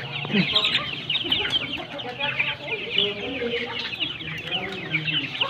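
A crowded flock of young heritage chickens in crates calling constantly: a dense chorus of many short, high, falling peeps, mixed with lower clucks.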